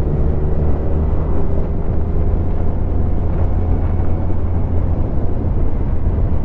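Kawasaki Z1000's inline-four engine running at a steady cruise, its low hum holding one pitch without revving, mixed with wind and road noise.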